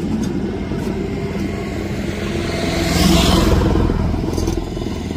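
Tow truck's engine running close by with a rapid low pulsing. It revs up and gets louder with a hiss about three seconds in, then settles back.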